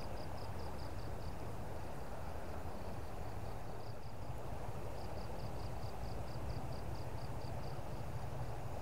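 An insect chirping in short, evenly spaced high pulses, about five a second, in a brief run at the start and a longer run in the second half, over a steady low rush of flowing river water.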